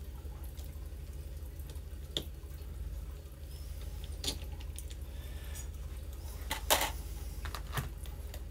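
A few light clicks and knocks of the air rifle's metal parts being handled, the loudest a short cluster about two-thirds of the way through, over a steady low hum.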